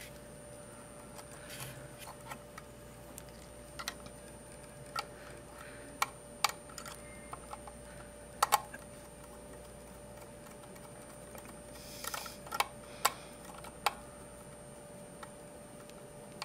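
Small, irregular clicks and taps of a screwdriver turning a terminal screw and a wire being fitted into a plastic screw-terminal block, over a faint steady hum.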